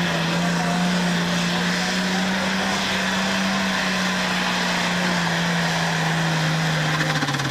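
Super stock pulling tractor's engine running at full power under the load of the sled, one steady note sagging slowly lower, then falling away sharply near the end.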